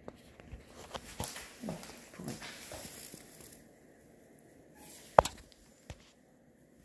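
Rustling and clicking of a handheld phone camera being moved about, with two short falling low sounds in the first few seconds and a single sharp click about five seconds in.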